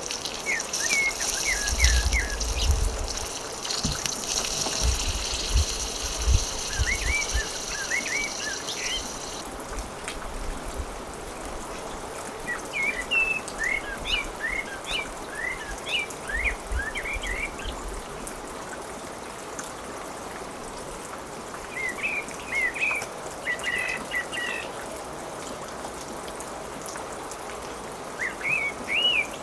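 Small birds chirping in short clusters of quick up-and-down notes, over a steady high hiss that cuts off abruptly about a third of the way in. Low rumbles come and go in the first few seconds and again a little past halfway.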